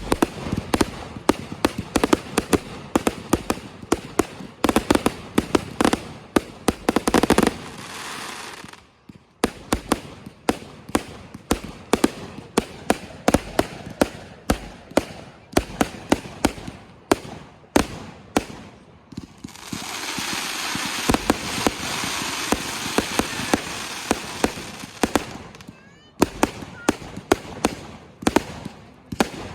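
Consumer fireworks going off: a long run of sharp cracks and bangs, several a second, with a steady spraying hiss for several seconds in the second half.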